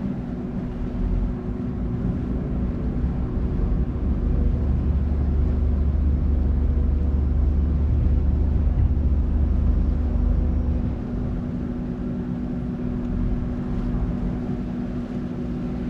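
Passenger ferry's engine running with a steady hum and a deep low rumble; the rumble drops away about eleven seconds in.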